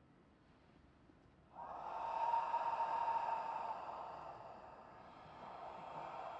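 A man's slow, audible breath out through the open mouth, a deliberate meditation breath. It starts about a second and a half in, eases off, then swells again near the end.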